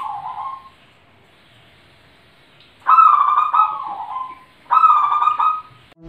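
Zebra dove (perkutut) cooing in bursts of quick, warbling notes. One phrase ends just after the start, then two longer phrases follow about three and five seconds in.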